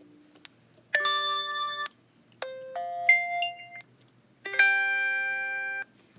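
A phone playing FreedomPop's short alert tones one after another: three brief electronic chime tones, each about a second long, with short gaps between. The middle tone steps through several notes.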